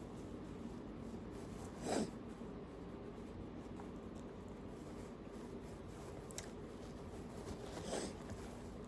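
A woman sniffing sharply through her nose twice, about two seconds in and again near the end, as a tickle builds toward a sneeze.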